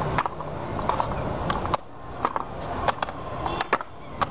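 Chess pieces knocked and set down on the board, a handful of sharp, irregular clicks over a steady room murmur.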